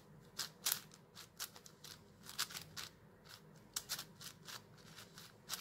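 YJ Yufu V2 M 7x7 magnetic puzzle cube being turned by hand: its plastic layers make an irregular run of sharp clicks, a few each second.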